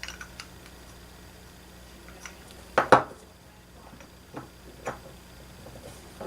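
Small metal engine parts being handled and set down on a workbench: a few light clicks, then a louder double knock about three seconds in, followed by two smaller clicks.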